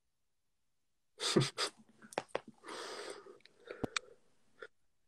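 Broken-up audio of a video call whose connection is dropping: about a second of dead silence, then choppy bursts of hiss and sharp clicks for a few seconds before it goes quiet again.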